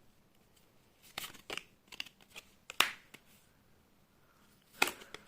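Tarot cards being handled: a few short rustles and flicks of cards being drawn and laid down, the sharpest near three seconds in and another near the end.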